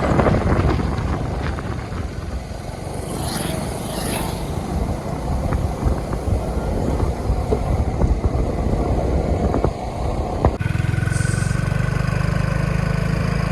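Motor vehicle on the move: steady engine and road noise. About ten and a half seconds in it changes abruptly to a steadier low engine hum.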